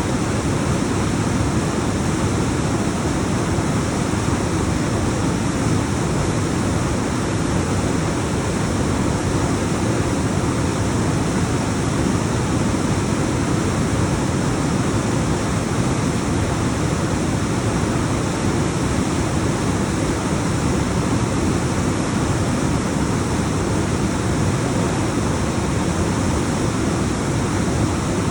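Alpine waterfall: water pouring down over rocks in a continuous heavy rush that holds steady throughout.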